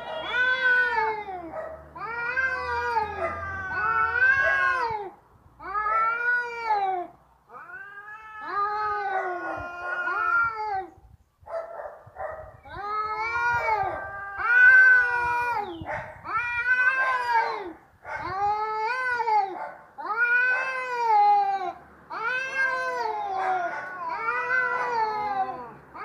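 Domestic cat yowling in a threatening, fight-ready way: about a dozen long calls in a row, each rising and then falling in pitch, with short breaks between them.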